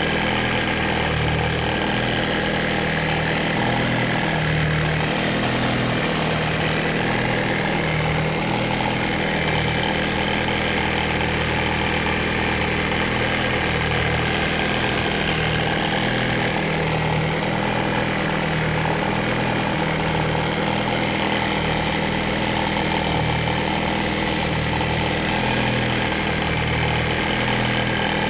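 Car engine idling steadily, recorded to show an abnormal noise coming from the engine.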